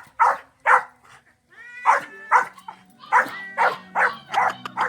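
Hunting dogs barking in a quick run of sharp barks, about two a second, with a pause of about a second near the start.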